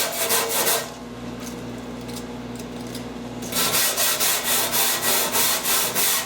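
Hand scrubbing of a car's interior armrest panel: quick back-and-forth scrubbing strokes, about five a second, cleaning the panel after the old upholstery has been stripped off. The strokes stop for about three seconds from about a second in, then start again.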